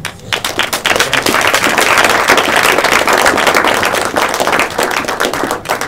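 Audience applauding, a dense patter of many hands clapping that begins suddenly and stops just before the end.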